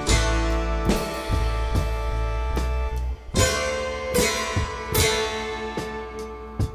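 Background music led by guitar, with bass and a steady drum beat.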